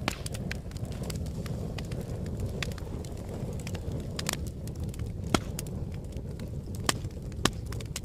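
Wood fire burning in a fireplace: a steady low rumble of flames under constant irregular crackling, with a few sharper single pops, the loudest about five seconds in.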